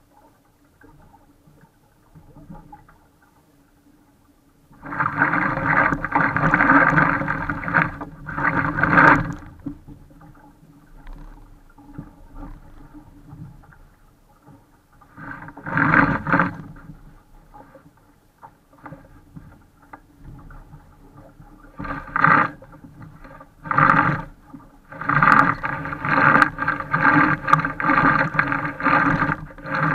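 Rushing wind-and-water noise on a mast-mounted camera of a small sailing dinghy under way, coming in irregular loud surges with quieter spells between: one long surge about five seconds in, a short one near the middle, and repeated surges in the last third.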